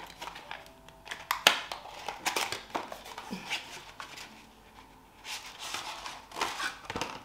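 Cardboard packaging of a pressed-powder compact being pulled open and handled: paper rustling and crinkling, with scattered sharp small clicks and taps.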